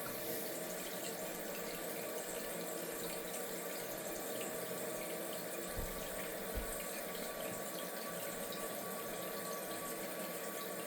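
Toilet tank refilling through a new fill valve, slowly because the main water is only turned on a small amount: a steady rush and hiss of running water with a faint steady tone over it. Two soft low thumps a little past halfway.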